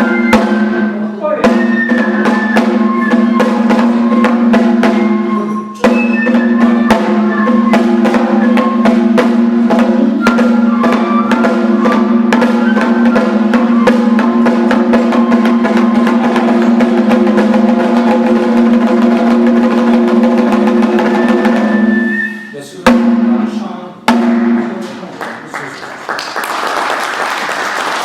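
Kagura dance music: fast, dense drum strokes over a steady held pitched line. It breaks off about 23 seconds in, then come a couple of final strikes, and applause fills the last few seconds.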